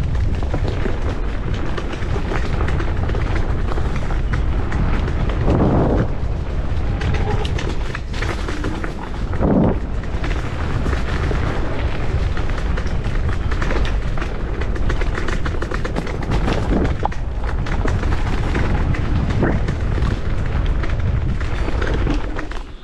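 MS Energy X10 electric scooter rattling and jolting over a rough dirt forest track, with heavy wind rumble on the microphone and a few harder knocks from bumps.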